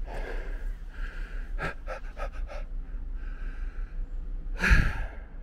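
A man breathing hard through the mouth as he climbs a steep trail, with a quick run of short breaths about two seconds in and a loud exhale near the end.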